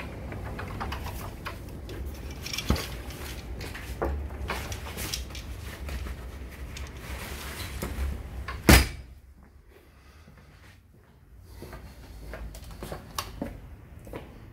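A door shut with a single loud knock nearly nine seconds in, after which the steady background noise falls away. Before it there is rubbing and scattered clicks from the phone being handled close to the walls, and there are a few small clicks near the end.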